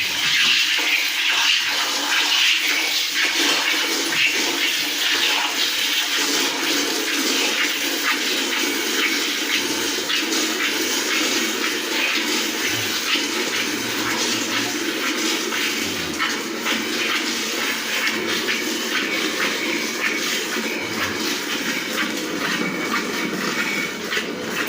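Milk squirting from a cow's teats into a bucket during hand milking, a continuous hiss of jets hitting the pail.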